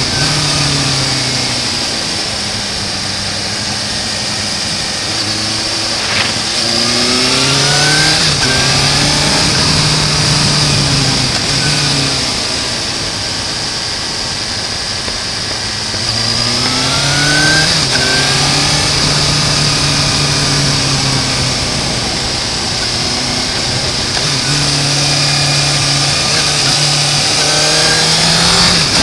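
Suzuki GSR750's inline-four engine heard from onboard the moving motorcycle. The revs climb three times as the rider accelerates (about six seconds in, about sixteen seconds in, and near the end) and fall back off in between, over a steady rush of wind and road noise.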